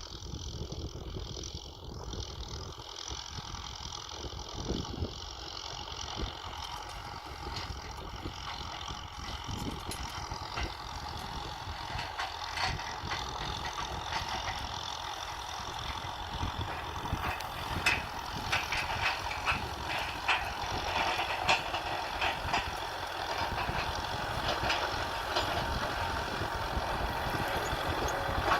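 Kubota M6040 tractor's diesel engine running while ploughing, with rattling clicks and knocks that grow louder through the second half.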